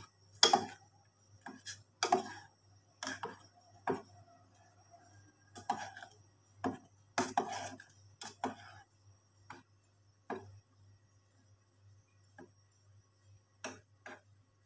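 A spoon clinking and scraping against a stainless steel pot while the curry broth is stirred: irregular knocks, frequent in the first half and thinning out toward the end, over a faint steady low hum.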